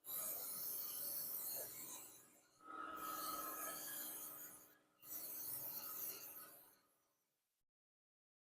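Aerosol can of brake cleaner spraying in three long hissing bursts of about two seconds each.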